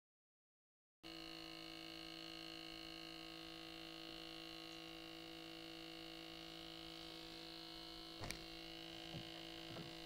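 Silence, then about a second in a faint, steady electrical hum made of several fixed tones, low and high, begins and holds. A single click sounds about eight seconds in.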